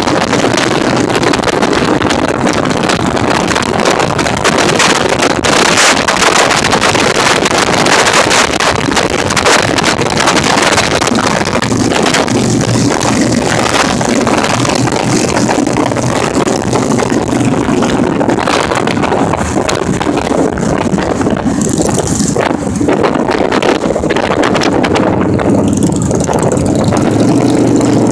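Motorcycle cruising at highway speed: a steady engine hum under loud, constant wind and road rush on the rider's microphone.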